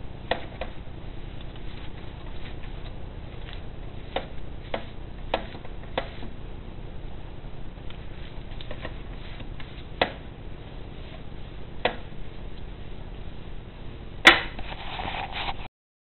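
Pastry brush working over a lined metal baking tray: scattered light clicks and taps over a steady hiss, a louder knock near the end, then the sound cuts off abruptly.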